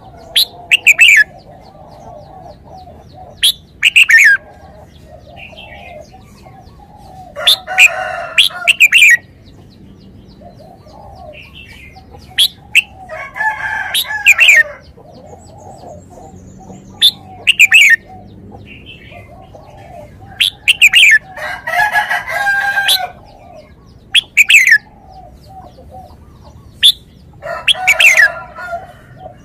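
Red-whiskered bulbul singing loud, short, whistled phrases of quick sweeping notes, one every few seconds. Fainter, lower chattering calls continue underneath.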